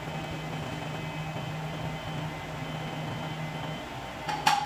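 Belt-driven pillar drill press running with a steady hum as its bit bores into a camphor-wood log. Near the end come a few sharp metallic knocks with a ringing tone.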